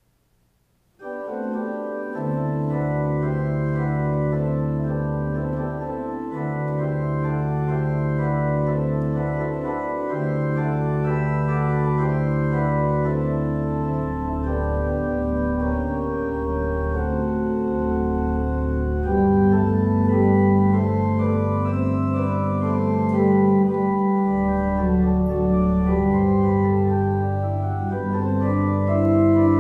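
Church organ playing a hymn, starting suddenly about a second in. Long held low pedal notes sound beneath moving chords.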